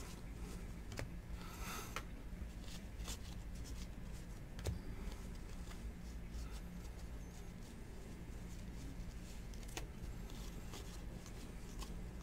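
Trading cards being handled: a light rustle near the start, then faint scattered clicks and a small thump about halfway through, over a low steady hum.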